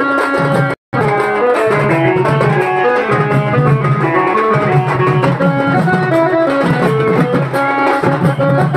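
Loud street-procession band music: drums keeping a steady beat under a stepping melody line. The sound cuts out completely for a split second about a second in.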